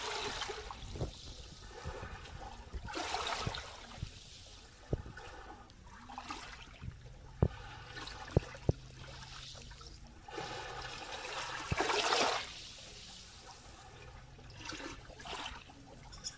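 Small waves lapping and washing over sand in shallow seawater, coming in gentle surges every few seconds. A few sharp clicks stand out about halfway through.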